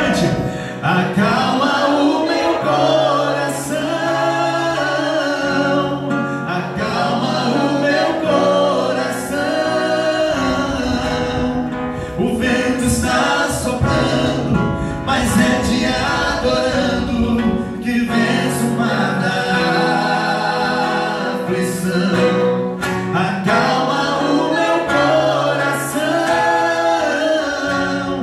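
Male voices singing a slow gospel song into microphones, accompanied by strummed acoustic guitar.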